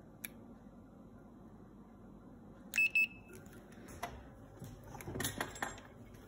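Handheld infrared thermometer giving two short high beeps about three seconds in as a temperature reading is taken. A few clicks and rustling of handling follow.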